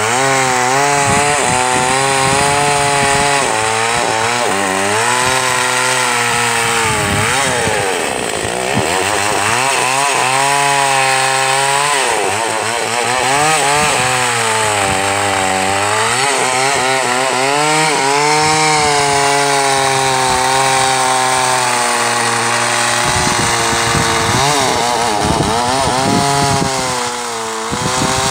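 Gasoline chainsaw cutting through a thick mango trunk, its engine pitch dropping under load and rising again, over and over.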